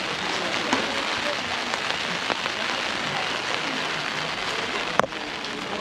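Steady rain falling, with scattered sharper drop ticks and one loud sharp click about five seconds in.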